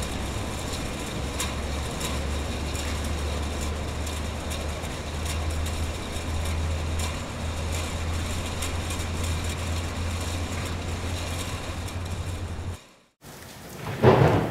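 Conveyor machinery on a tomato packaging line running: a steady low hum with faint scattered clicks. It cuts off suddenly near the end, and a swelling noisy rumble rises after a brief silence.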